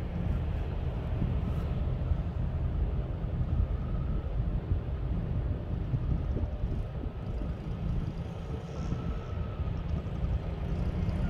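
Small kids' dirt bike engine running at a distance, a faint note that comes and goes as the bike rides across the field, over a steady low rumble.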